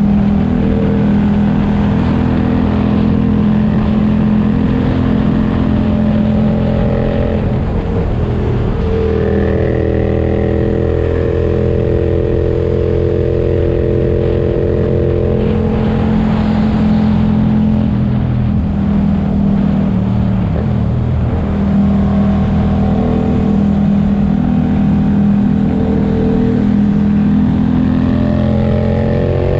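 Yamaha motorcycle engine running steadily in sixth gear at highway speed, heard from on board the bike, its note shifting slightly in pitch a few times.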